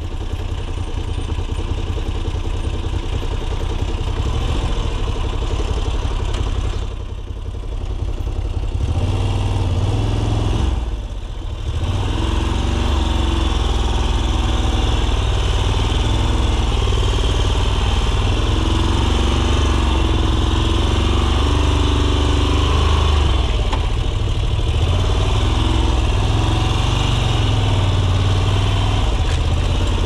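Adventure motorcycle engine running at low speed on a rough dirt trail. The sound drops off briefly twice, about 7 and 11 seconds in, then holds a steady low note with small rises and falls in pitch.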